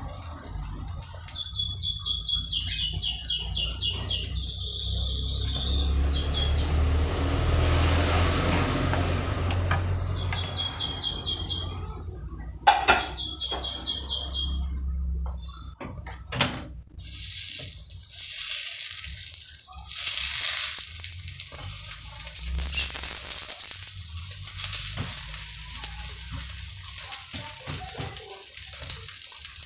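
Omelette frying in oil in a frying pan: a steady sizzling hiss that grows louder in the second half as it is folded over with a spatula and spoon, with a sharp click about 13 seconds in. A bird chirps in short, quick, high trills several times in the first half.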